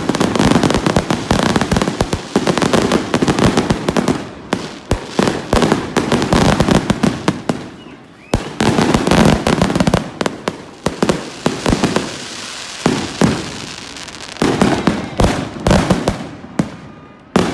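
Fireworks and firecrackers going off all around in dense, near-continuous crackling volleys of rapid pops and bangs, thinning briefly about eight seconds in and again near the end before picking up.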